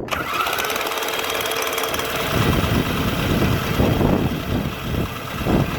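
Lawnmower's electric starter, jumped straight from a battery, cranking the engine without it catching. It cuts in abruptly and keeps cranking for several seconds. The owner suspects weak spark from a rusty, dirty magneto.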